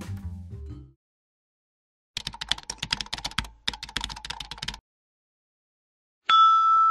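Computer-keyboard typing sound effect: a rapid run of key clicks lasting about two and a half seconds, broken by a short pause. Before it the last notes of mallet-percussion music die away in the first second. Near the end a steady ringing tone starts abruptly.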